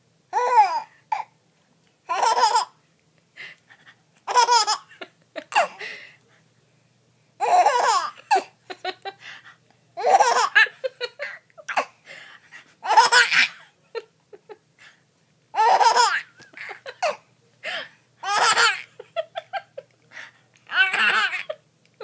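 A four-month-old baby boy laughing in about ten short, high-pitched bursts, one every two to three seconds, with short quiet gaps between them.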